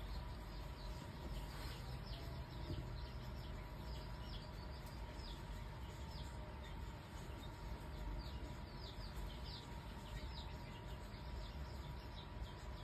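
Many short, high chirps from a small animal, falling in pitch and repeated irregularly, over a faint steady hum.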